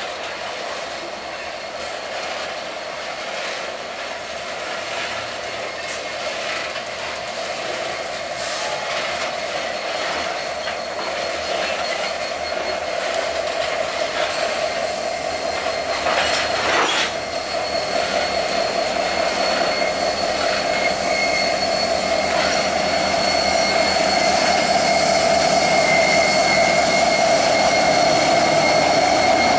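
Freight train of covered hopper cars rolling past with steady wheel-on-rail noise, a thin high whine and a single clank partway through. The train's rear diesel locomotive draws closer, and the sound grows steadily louder toward the end.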